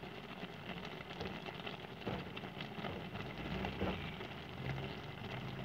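Pot of fish and vegetables simmering in a sour broth, with a steady crackle of small bubbles popping.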